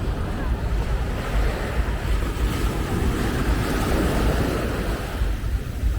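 Ocean surf: a wave breaks and washes in, swelling to a peak around the middle and then fading, over a steady low rumble of wind on the microphone.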